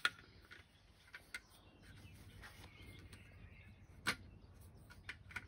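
A few light clicks and knocks as the metal end piece of a folding camping table is slotted onto the rivets of its tube frame, the sharpest knock about four seconds in.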